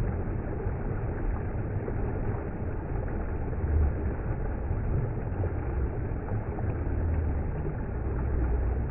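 Shallow mountain river rushing over boulders, a steady, dull rumble of running water with no high hiss.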